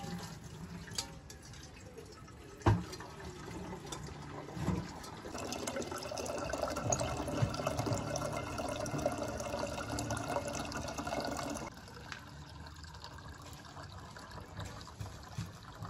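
Tap water running into a kettle and filling it. The water runs for about six seconds and then cuts off abruptly as the tap is shut. A sharp knock comes a little under three seconds in, before the water starts.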